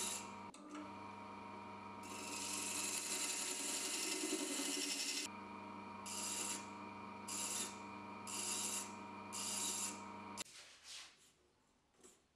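Small wood lathe running at its lowest speed while a hand-held female thread chaser scrapes internal threads into apricot wood: one long continuous cut, then four short passes about a second apart. The lathe motor stops near the end.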